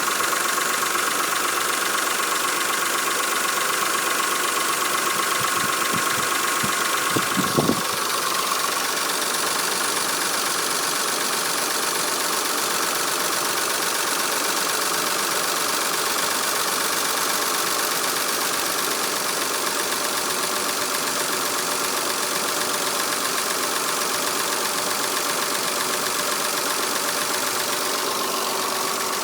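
Mitsubishi 6G72 24-valve V6 idling steadily with a rapid valvetrain ticking, which the owner puts down to knocking hydraulic lifters. A few short thumps come about seven seconds in.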